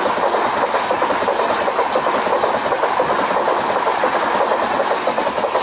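Tejas Express passenger coaches running past close by at speed: a steady, loud rush of steel wheels on the rails with a fast, continuous clatter.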